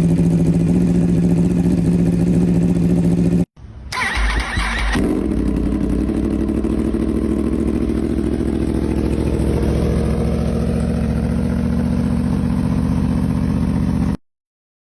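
A motorcycle engine running steadily, cut off abruptly about three and a half seconds in. A motorcycle engine then starts, with a loud burst as it catches, and settles into a steady idle that stops suddenly near the end.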